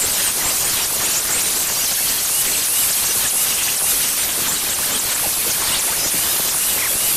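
Electric angle grinder with a wire wheel running steadily, held to the splined end of a tractor PTO shaft, a constant whirring hiss with light scratchy contact.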